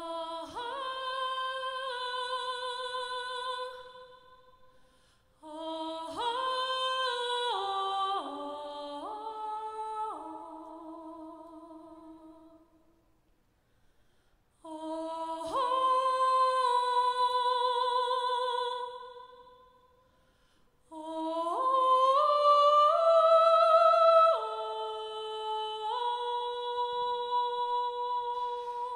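A cappella vocal group singing held, slowly shifting chords with no instruments, in four phrases separated by short pauses.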